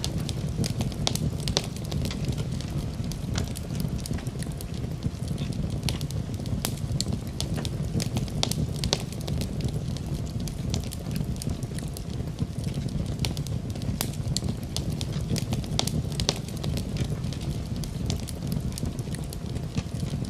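Fire crackling in a fireplace: frequent small pops and snaps over a steady low rush of flame.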